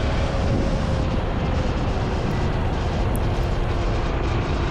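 Motorcycle engine running steadily with wind rushing over the microphone while riding.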